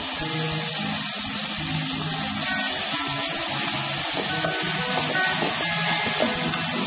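Chopped banana flower and greens sizzling in hot oil in a pan as they are stirred, a steady hiss. Background music plays throughout.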